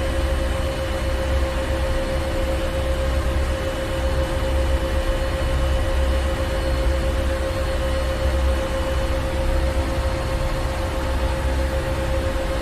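Ship engine room ambience: heavy machinery running steadily, with a deep rumble, a constant hum and an even hiss, unchanging throughout.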